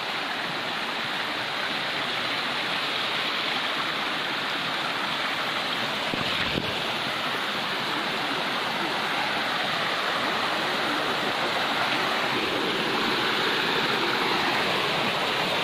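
Forest stream rushing and splashing over boulders in a small cascade, a steady rush of water that grows a little louder near the end. A single knock about six seconds in.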